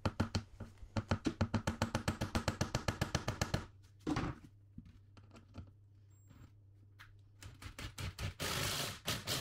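Ryobi cordless impact driver with a right-angle attachment driving screws into a plywood subfloor: a fast, even rattle of impacts for about three and a half seconds, a short burst about four seconds in, then another run of impacts near the end.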